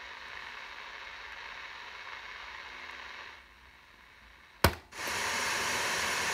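Grundig Ocean Boy 210 radio giving off a steady static hiss that drops lower a little past three seconds in. About four and a half seconds in, a band-selector push button clicks sharply as the set is switched to FM. A louder, steady FM between-station hiss follows.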